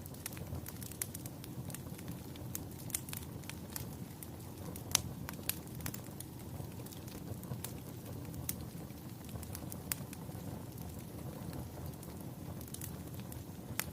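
Fire crackling: a steady low rumble of burning with irregular sharp pops scattered throughout, the loudest pop about five seconds in.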